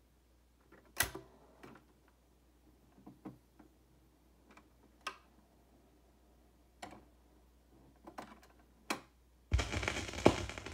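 Scattered light clicks of a turntable being handled, then near the end the stylus drops onto a spinning 45 rpm vinyl single, starting the crackle and hiss of the run-in groove, with a thump just after.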